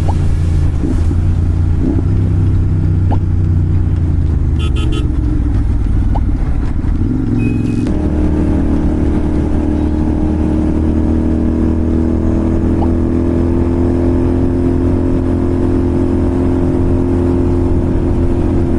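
Royal Enfield Continental GT 650's 650 cc parallel-twin engine running under way through a slip-on exhaust with the dB killer removed, cruising steadily. About eight seconds in the note changes, then holds steady and rises slightly.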